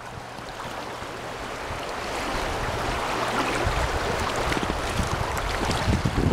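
River water rushing and splashing around a small inflatable raft on a riffle, growing louder over the first couple of seconds and then holding steady.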